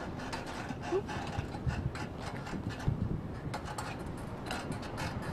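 Climbing footsteps and metal gear: irregular clinks, scrapes and low thumps, as a climber steps across a ladder over a crevasse.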